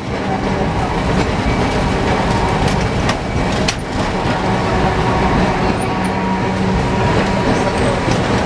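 1928 Peter Witt 'Ventotto' tram running, heard from inside its cab: a steady hum and rattle, with a couple of sharp clicks of the wheels over rail joints about three and four seconds in.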